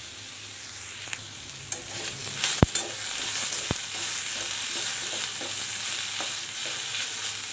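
Onions, green chillies and garlic sizzling in hot oil in a kadai while a metal spatula stirs them. The spatula scrapes and knocks against the pan, with two sharp clinks near the middle. The sizzle grows louder about two seconds in.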